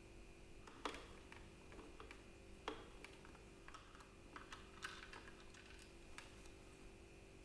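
Hard plastic clicks and taps from Dyson V6 cordless vacuum parts being handled and unclipped. Two sharper clicks come about one and three seconds in, followed by a run of lighter ticks.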